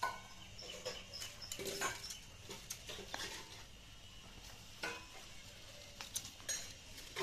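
A bundle of dry stalks rattling and knocking against each other and the clay stove as it is fed, burning, into the fire, with irregular sharp clicks and crackles.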